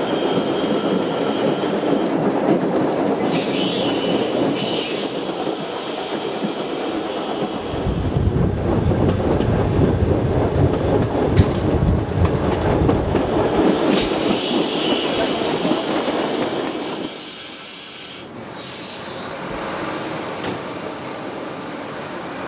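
A Corsican railway train running along the track, its wheels clattering on the rails, with thin high wheel squeal in places and a heavier rumble in the middle.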